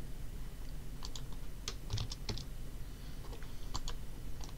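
Computer keyboard typing: about ten scattered keystrokes, some in quick pairs, over a low steady hum.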